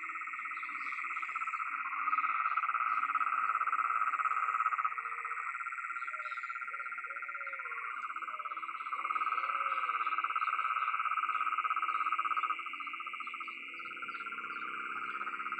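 Dense chorus of frogs calling, a continuous fast-pulsed trill at two pitches that swells and drops in steps every few seconds as callers start and stop.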